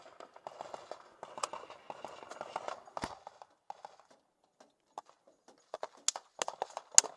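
Gunfire in combat: a clatter of small cracks, one heavy report about three seconds in, then from about six seconds in a quicker string of loud, sharp shots.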